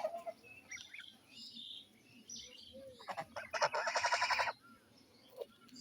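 A domestic goose gives one drawn-out call of about a second and a half, starting about three seconds in. Faint short bird chirps come before it.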